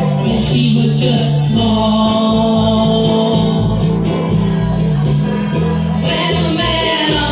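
Ukulele ensemble strumming together with several voices singing into microphones, over held low bass notes, heard live through a PA.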